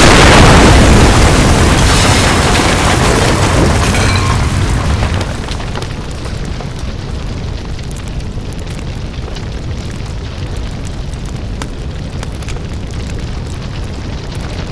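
Large explosion sound effect: a loud blast right at the start that rumbles and fades over about five seconds, then a steady low rumble of fire with scattered crackles and small pops of falling debris.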